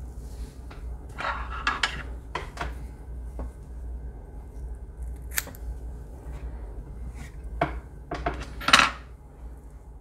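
Small metal fly-tying tools and deer-tail hair handled while a clump of bucktail is prepared for tying: scattered short clicks and rustles, the loudest near the end.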